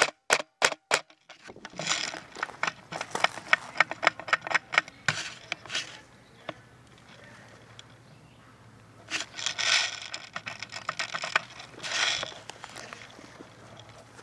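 About five quick sharp clicks in the first second. Then two spells of irregular crackling and rustling, like dry brush and leaves being pushed through, with a quieter stretch between them.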